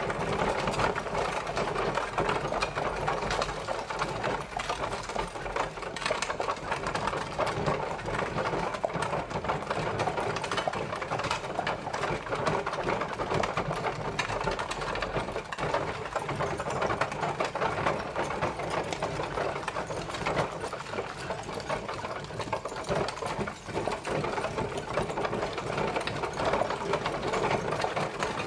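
Horse-drawn carriage travelling: a steady, dense rattling clatter of the moving carriage, unchanged throughout.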